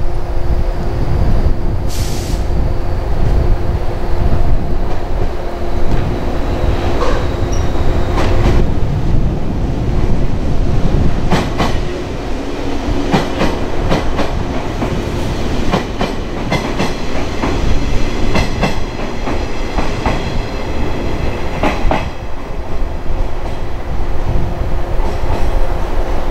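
Shinano Railway 115-series electric train running past on the near track: a steady low rumble, wheels clicking over rail joints through the middle of the passage, and a thin high wheel squeal in the second half.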